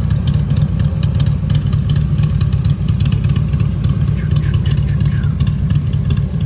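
Vehicle engine running steadily with a continuous low rumble, along with a scatter of light clicks and rattles.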